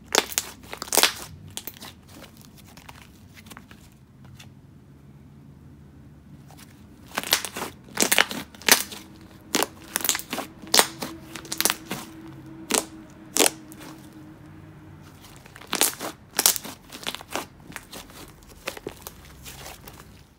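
Thick, creamy clay slime being squeezed, kneaded and stretched by hand, giving off irregular sharp pops and crackles in quick runs, with a quieter lull early on between them.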